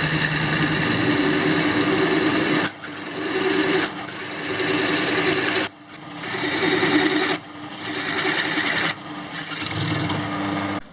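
Pillar drill press drilling into a metal plate: the motor runs and the bit cuts the metal, rising and falling in level several times.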